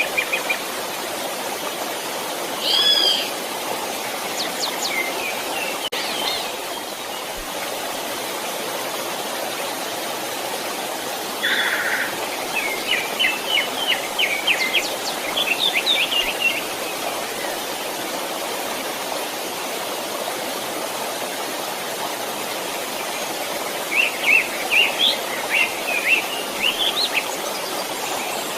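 Steady rushing of a small stream, with a songbird singing quick runs of high chirps three times: briefly near the start, longer in the middle, and again near the end.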